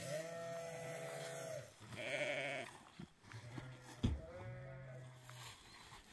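Goats bleating: a few long drawn-out calls, one with a quavering tremble about two seconds in. A single dull thump about four seconds in.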